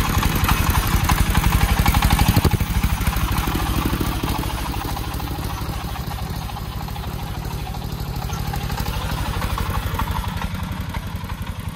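Single-cylinder diesel engine of a công nông three-wheeled truck loaded with sand, chugging with a steady rapid beat as it drives off. It is loudest for the first couple of seconds, then lower as the truck moves away.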